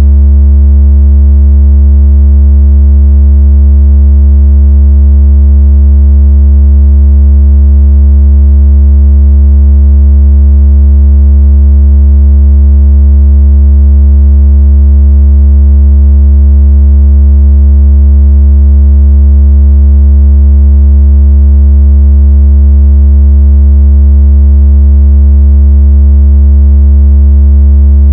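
A steady, very loud, deep sine tone with faint overtones, held unbroken: a low-frequency speaker-cleaning tone of the kind played to shake water out of a phone speaker.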